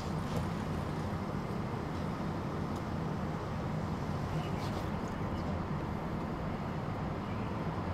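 Fire engine's diesel engine and pump running steadily, a low drone with an even hiss over it.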